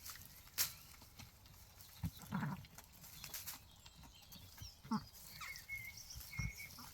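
Zwartbles ewe giving short, low nickering calls to her newborn lamb. A sharp click about half a second in is the loudest sound, and a thin high note comes near the end.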